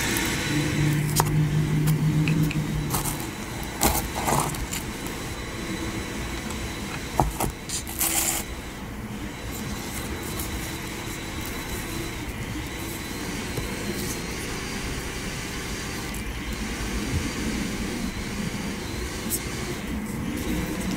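Soft handling and eating sounds of a layered gummy hamburger jelly candy being picked up, held at the mouth and pulled apart, with a few sharp clicks over a steady low rumble.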